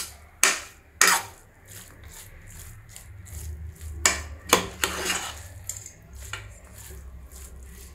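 A spatula stirring and turning cooked biryani rice in a nonstick pot, scraping through the rice and against the pot, with a few sharp knocks of the spatula on the pot: two in the first second and two around four seconds in.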